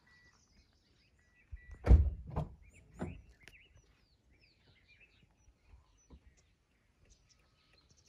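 Faint, sparse bird chirps in dry bush, with three dull thumps about two to three seconds in.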